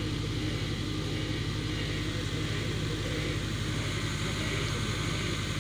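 Fire engine's diesel engine idling with a steady low rumble.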